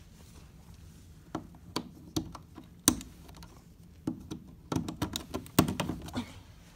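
Irregular knocks and clicks, about a dozen, the two loudest about three and five and a half seconds in, over a faint low hum: handling noise from a handheld camera being moved around.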